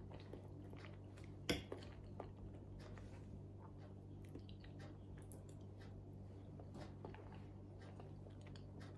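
Knife and fork clinking and scraping on a plate, with soft chewing, over a steady low hum. One sharper clink about a second and a half in.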